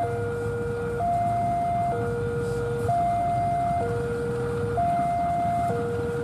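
Level-crossing warning alarm sounding a steady two-tone high–low cycle, each tone lasting about a second, over the low rumble of a diesel locomotive moving slowly past.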